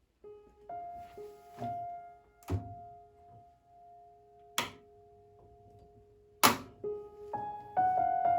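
Gentle piano background music playing slow, held notes, with several sharp knocks over it, the loudest about six and a half seconds in.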